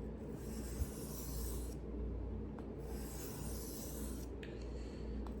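A steel knife blade being drawn by hand across a whetstone in slow, even scraping strokes, each about a second and a half long, starting roughly every two and a half seconds.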